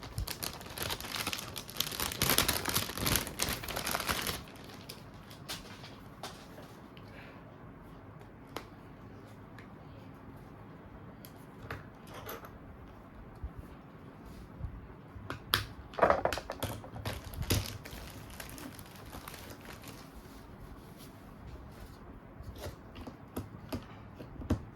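Plastic packaging crinkling for about four seconds, then scattered light clicks and taps of phones and phone parts being handled, with a louder cluster of knocks about sixteen seconds in.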